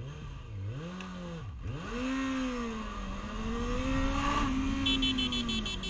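Yamaha XJ6 inline-four motorcycle engine heard from the rider's helmet camera: its revs drop and pick up twice, then rise and hold before easing off. About five seconds in, a rapid high-pitched beeping starts, about five pulses a second.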